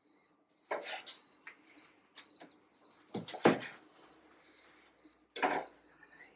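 Chef's knife cutting through a grilled porterhouse steak and knocking on the cutting board a few times, the loudest knock about three and a half seconds in. A cricket chirps steadily in the background.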